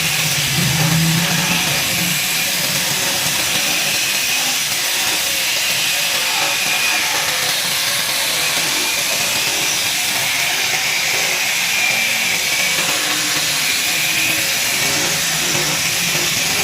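A handheld power tool running steadily against wood, its pitch wavering slightly up and down.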